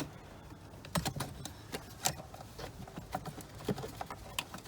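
Irregular light clicks and taps of small plastic clips being squeezed and worked into place by hand, with sharper clicks about one and two seconds in.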